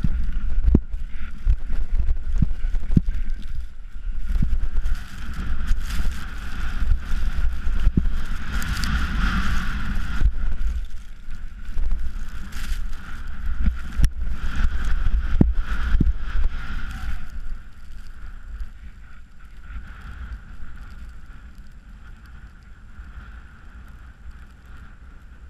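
Wind buffeting the camera microphone during a fast ski descent of a steep snow chute, with the skis scraping and chattering on the snow. The rushing dies down about two-thirds of the way through as the skier slows.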